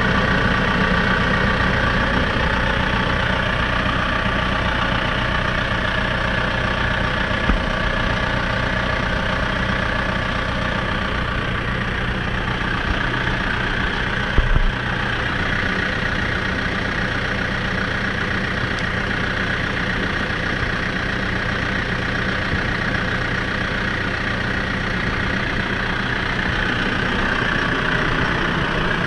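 CLAAS Talos 240 tractor's 95-horsepower diesel engine running steadily, heard close up, with a couple of brief knocks, the sharpest about halfway through.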